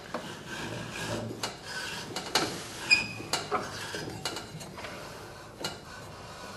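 Hand and tool scraping and rubbing on the underside of a riding mower's steel cutting deck, with scattered clicks and a short ringing metal clink about three seconds in.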